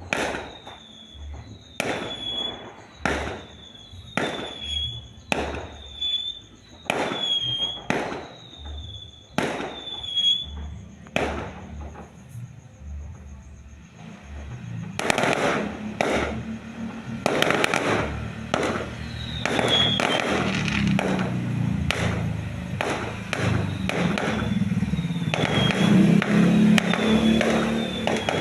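Fireworks going off: sharp bangs at a steady pace of about one a second, then after a short lull a dense barrage of overlapping bangs and crackling that gets louder toward the end.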